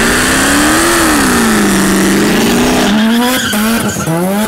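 Big-turbo Mazda RX-7's 13B rotary engine held at high revs during a burnout, the rear tyres squealing and spinning on the pavement. In the last second and a half the engine revs rise and fall several times in quick succession.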